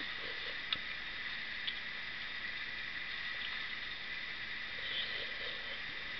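Steady background hiss with a persistent high-pitched whine, broken by two faint clicks in the first two seconds.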